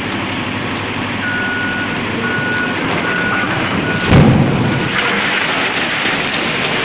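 A heavy vehicle's reversing alarm beeps about five times over a steady machine rumble, then a single heavy crash about four seconds in.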